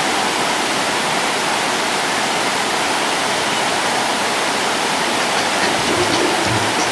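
Waterfall cascading over tiered rock ledges into a pool: a steady, even rush of falling water.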